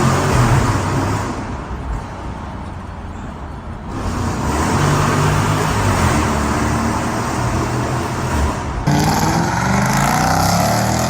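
Jeep Grand Cherokee's swapped-in 6.4-litre HEMI V8 running, in a few short clips that cut abruptly about four and nine seconds in; after the last cut the engine revs up.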